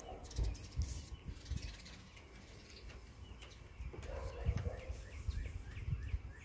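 A small bird chirping repeatedly, a quick run of short high notes about three a second, strongest in the second half, over low rumbling on the phone's microphone.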